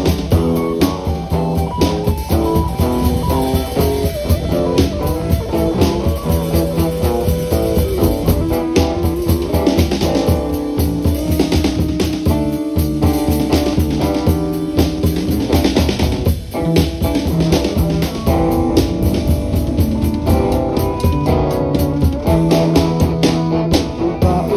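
A Chasidic rock band playing live: guitars and bass guitar over a drum kit keeping a steady beat, with a long held note through the middle.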